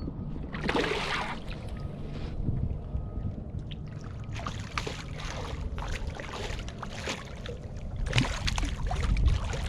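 Water splashing in several bursts as a hooked fish thrashes at the surface beside a kayak, with wind rumbling on the microphone.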